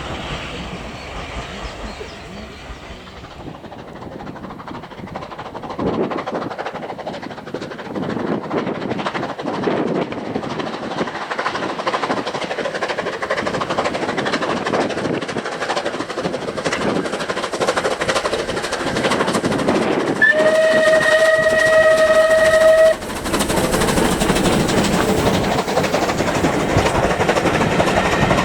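Steam train running and growing louder as it approaches, with one steady whistle blast of about two and a half seconds a little past two-thirds of the way through; the running noise carries on louder after the whistle stops.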